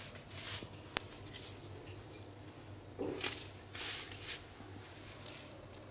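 Hands rubbing and gripping bare feet and ankles during a foot massage: soft skin-on-skin swishes in several short bursts, most of them a little past the middle, with a single sharp click about a second in.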